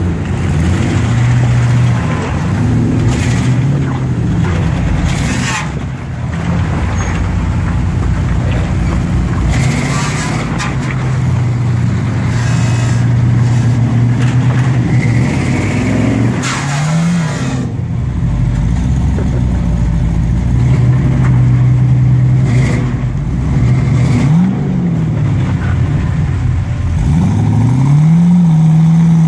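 Lifted off-road SUV's engine revving up and down again and again as it climbs a steep rock ledge, its tyres spinning, with several sharp knocks along the way.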